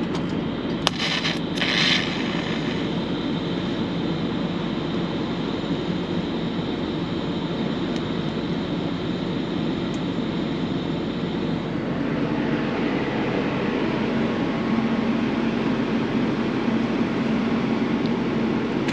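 A steady engine drone runs throughout, with a higher hiss over it that stops about twelve seconds in.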